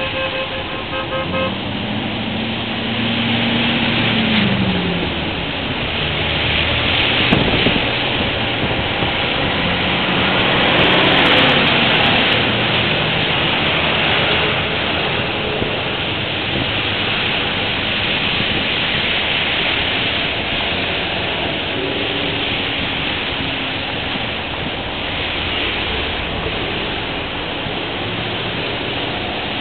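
Vehicles driving past on a rain-wet road: steady tyre hiss and engine noise, swelling as one passes close about eleven seconds in. A brief horn sounds at the very start.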